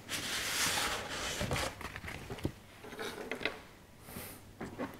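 Faint handling noise: a soft rustle in the first second or so, then a few light clicks and knocks.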